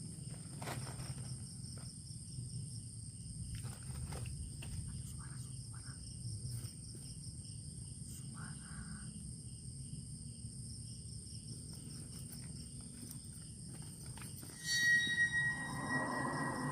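Night insects, crickets among them, trilling steadily at several high pitches over a low rumble, with a few faint clicks. Near the end a sudden louder sound starts with a held high tone.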